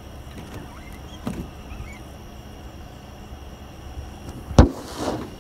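Steady low rumble with a light knock about a second in, then a single sharp, loud knock near the end followed by a brief rush of noise.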